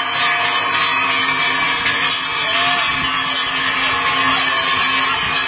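Many large cowbells clanging and ringing together, worn by a herd of cows walking past; a dense, continuous clamour of bells at different pitches.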